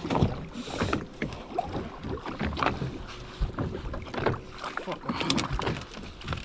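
Water sloshing and slapping against the side of a small open fishing boat, with irregular knocks and splashes at the hull as a fish is brought up alongside.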